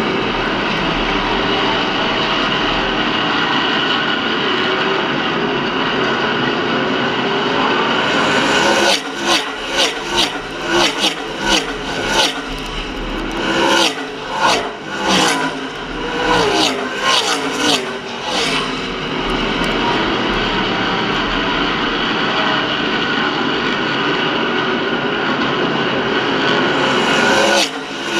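V8 stock cars racing on a short oval: a steady engine sound from cars around the track, then from about nine seconds in a string of cars passing close by one after another for about ten seconds, and another car passing close near the end.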